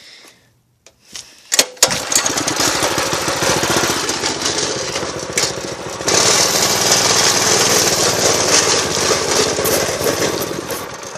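Go-kart's small gas engine catching about two seconds in and running, with more throttle and a louder note from about six seconds in, then dropping off near the end. It is not yet warmed up, having sat out for a while.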